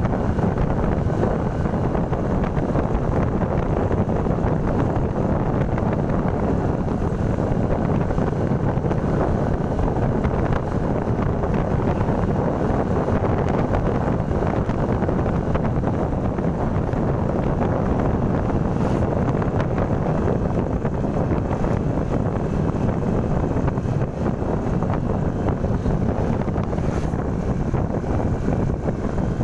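Wind rushing over the microphone of a moving motorcycle, with steady engine and road noise underneath.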